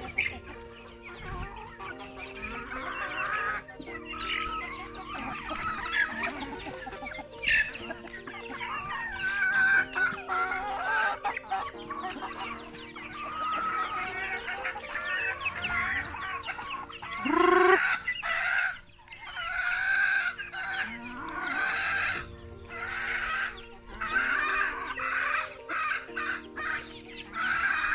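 A flock of chickens clucking, with a rooster crowing loudly once a little past the middle. Soft background music with sustained chords plays underneath.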